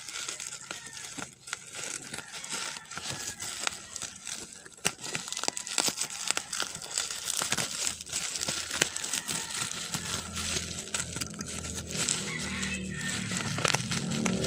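Crinkling and rustling of plastic being handled, with many small irregular clicks.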